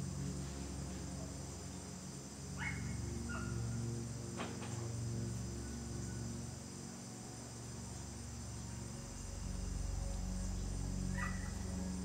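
Steady chorus of crickets over a low, steady background drone, with a few short chirps about three seconds in, a second later, again at four and a half seconds, and near the end.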